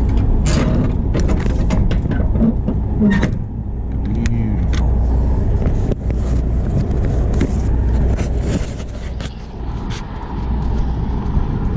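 Metallic clanks and clicks of a semi-trailer's swing doors and lock rods being shut and latched, most of them in the first three seconds with scattered knocks later. Under them runs a steady low engine idle.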